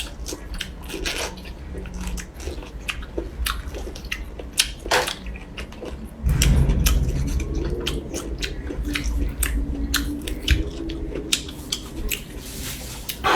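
Close-miked biting and chewing of a tender bamboo shoot, with many short sharp clicks. A louder low rumble comes in about six seconds in.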